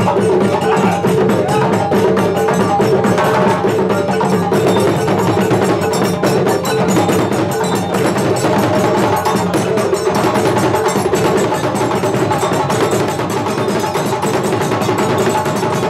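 Live Malian drum ensemble of djembe and Khassonke dundun drums with a balafon, playing a dense, continuous dance rhythm.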